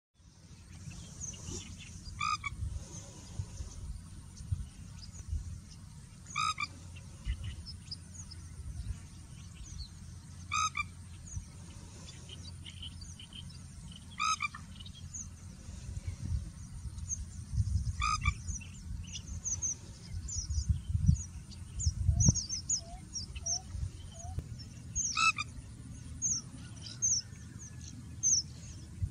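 Pheasant-tailed jacana calling: a short call with several stacked pitches, repeated six times about every four seconds. Quicker high chirps fill the gaps, and a low steady rumble runs underneath.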